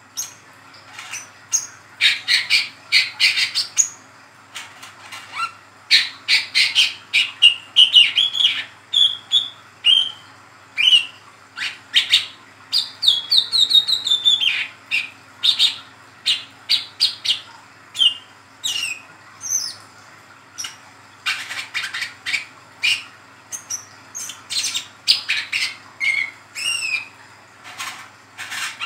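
Young male brown-throated sunbird in mottled plumage singing a rapid chattering song: quick bursts of sharp high chirps and short downslurred notes, broken by brief pauses.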